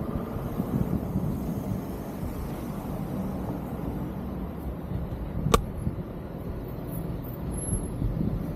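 Road traffic on a city street, a low steady rumble with a faint hum coming and going. One sharp click about five and a half seconds in.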